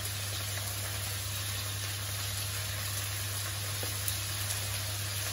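Diced chicken breast frying in olive oil in a wok over medium-high heat: a steady sizzle, with a constant low hum underneath.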